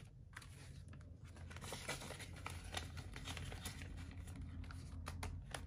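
Faint rustling and crinkling of paper bills being handled and counted, with scattered soft taps and brushes.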